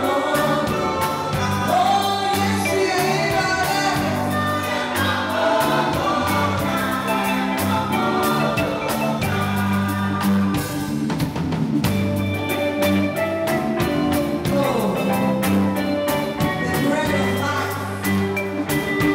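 Gospel choir singing in parts, led by a woman on a handheld microphone, over instrumental backing with held bass notes and percussion.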